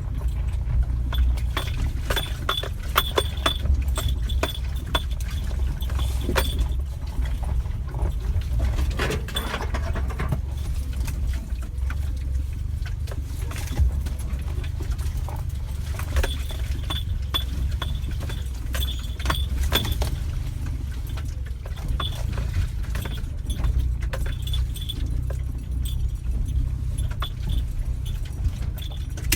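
Suzuki Jimny being driven, heard from inside: a steady low road and engine rumble with frequent loose rattles and clinks throughout.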